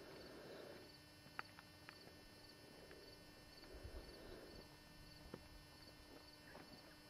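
Near silence: faint outdoor ambience with a few soft clicks and a faint high tick repeating under two times a second.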